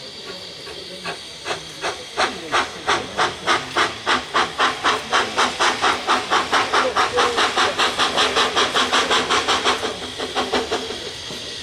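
Steam locomotive working towards the station, its exhaust chuffing in regular beats that grow louder and quicker, to about four a second. The beats stop near the end, leaving a steady steam hiss.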